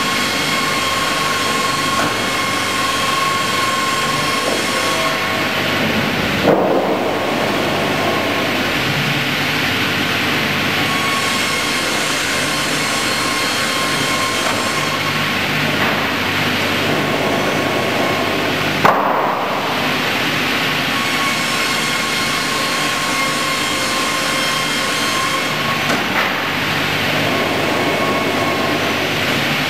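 Automated double-bladed circular sawmill running, a steady mechanical din with a high whine from the spinning saw blades. Two sharp knocks, about six seconds in and again some twelve seconds later, each break the steady noise briefly.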